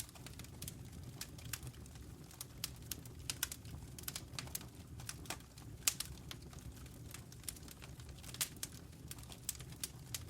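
Wood fire crackling in a fireplace: irregular sharp pops and snaps, several a second, over a low steady rumble of the burning logs.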